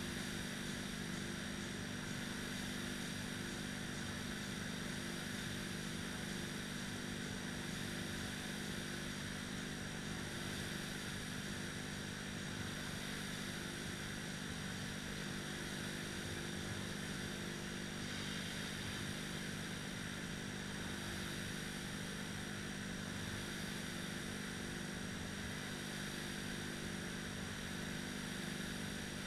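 Air-resistance rowing machine flywheels whirring steadily as two rowers pull hard, a continuous fan-like drone.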